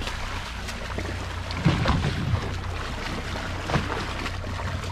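Boat's engine idling as a steady low hum, with water slapping and splashing against the hull; a few sharper slaps stand out, the loudest about two seconds in.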